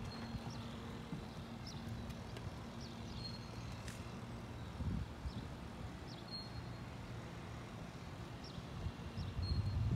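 Footsteps and camera-handling knocks on a boat deck, over a faint steady low hum. Short high chirps come now and then.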